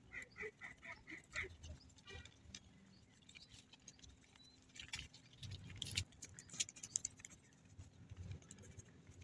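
Faint scratching and clicking as a toothbrush scrubs rust off a motorcycle chain and the chain's links shift against each other, a little louder a few seconds in. A quick run of about six high chirps comes in the first second or so.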